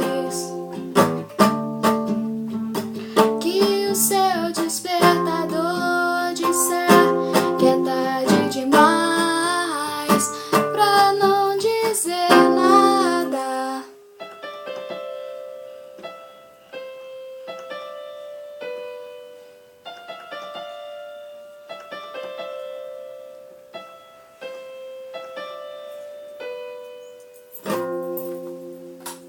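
End of a song: ukulele strummed under wordless singing. About 14 seconds in it drops to a quieter melody of separate single notes, and one last strummed chord sounds near the end.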